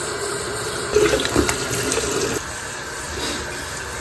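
Water running from a tap into a sink, a steady rush, louder and more uneven for a second or so after about a second in.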